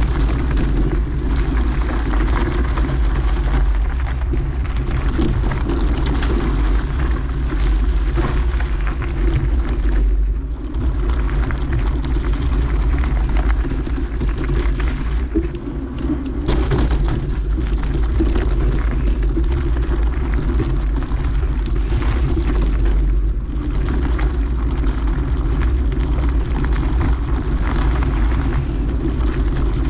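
Steady wind rumble on the microphone, with the noise of a mountain bike's tyres rolling over a dirt trail, while riding downhill at speed.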